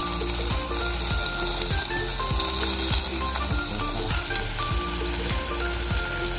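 Food sizzling steadily as it fries in a pan, under background music with a steady beat.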